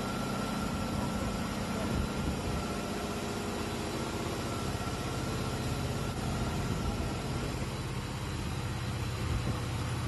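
Network cable production line running: a steady mechanical hum of motors and winding gear, with a thin steady whine that fades out about seven seconds in.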